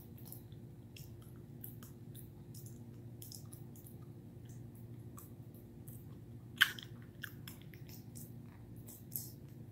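A puppy gnawing on a hard bully stick: irregular small crunches and clicks of teeth on the chew, with one louder crack about two-thirds of the way through.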